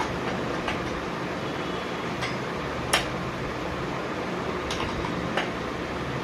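A few short clicks and ticks from hands handling plastic packing on a new bicycle, the sharpest about three seconds in, over a steady background hum.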